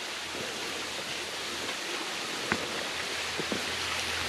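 Creek water rushing over rocks, a steady hiss, with a few light knocks about halfway through and again near the end.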